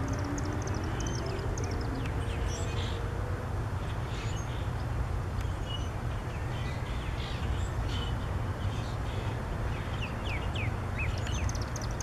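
Small songbirds chirping, with quick runs of high falling notes at the start and again near the end, over a steady low rumble.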